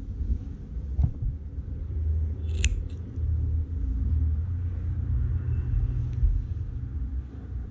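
Scissors snipping through yarn: one sharp snip about two and a half seconds in, over a steady low rumble, with a faint click about a second in.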